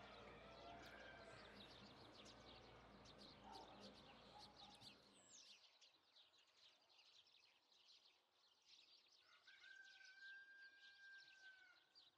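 Faint outdoor birdsong: many short, high chirps throughout, with one held whistled note near the end. A low background rumble stops about halfway.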